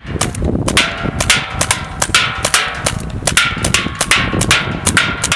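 A paintball marker fired repeatedly at an uneven pace, about three to four sharp pops a second.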